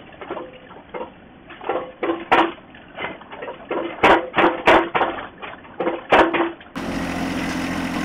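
Irregular knocks and clanks of a compact tractor's backhoe bucket digging into soil and stones. About seven seconds in, the John Deere 1025R's three-cylinder diesel engine is heard running steadily.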